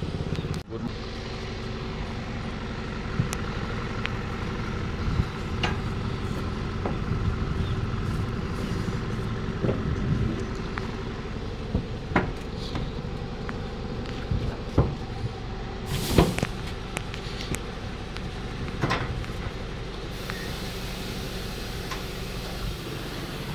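Diesel truck engine idling steadily, with scattered knocks and clanks, one louder about two-thirds of the way through, from the rope and hooks of the tarpaulin lashing being worked loose on the truck's body.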